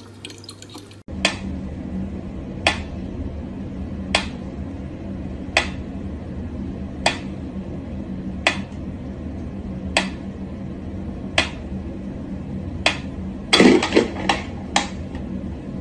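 Mechanical pendulum metronome ticking slowly, one sharp tick about every second and a half, over a steady low hum. Near the end comes a louder knock, then a few quicker, uneven ticks as a cat bats at it.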